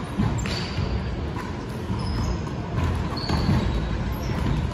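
Rubber-soled court shoes squeaking briefly on a hardwood sports floor, several times, with a few sharp ball bounces, over the steady low din of a large echoing sports hall.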